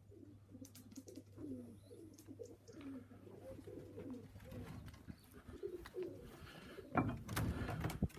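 Domestic pigeons cooing in a loft, many low repeated coos overlapping one another, with a louder burst of noise about seven seconds in.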